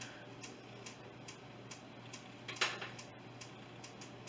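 Faint, steady ticking, a little more than two ticks a second, with one louder sharp click about two and a half seconds in.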